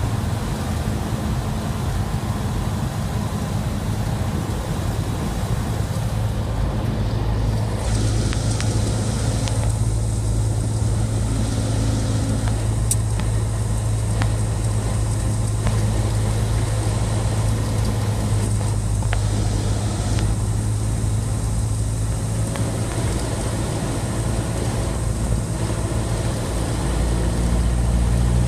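Cessna 172SP's four-cylinder Lycoming engine and propeller droning steadily, heard inside the cabin on final approach. The note steps up slightly about eight seconds in and grows a little louder near the end.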